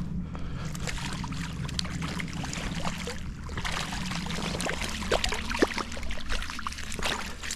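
Creek water running, with scattered sharp clicks and splashes while a small hooked trout is brought in.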